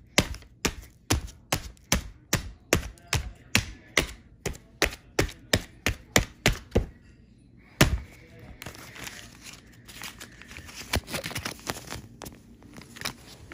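Repeated blows of a TV remote on a paper cutout lying on a bed, about three a second, with one harder blow a little later. Then paper rustling and rubbing under a hand, with a few light taps.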